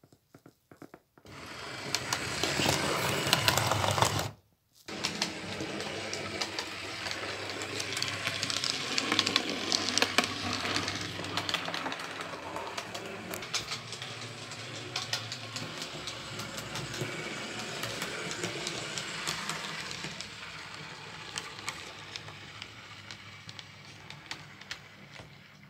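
HO-scale model railcar running along the layout track: its small electric motor whirs steadily with many light clicks from the wheels on the rails. It starts about a second in, cuts out for half a second around four seconds, then resumes and slowly fades toward the end.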